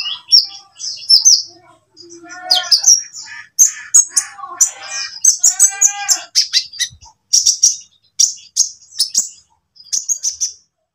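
Olive-backed sunbird (kolibri ninja) chirping and singing: runs of rapid, high, sharp chirps and short trills broken by brief pauses, with a few fuller, lower warbled phrases in the middle.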